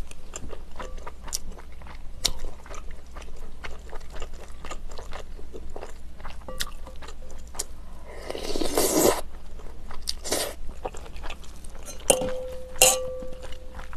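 Close-miked eating sounds of beef rice cake soup with glass noodles: soft chewing and wet mouth clicks, with a second-long slurp about eight seconds in. Near the end there is a clink of tableware that rings on faintly.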